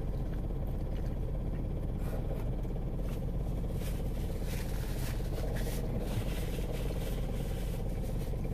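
Steady low hum of a car's engine idling, heard from inside the cabin, with faint chewing noises now and then.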